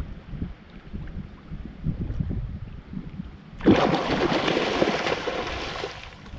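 Wind rumbling on the microphone. About three and a half seconds in, the loud, even rush of a shallow stream's flowing water cuts in suddenly and lasts a couple of seconds.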